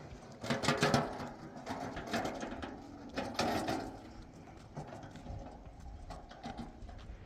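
A few short animal calls, one after another, among scattered clicks and knocks.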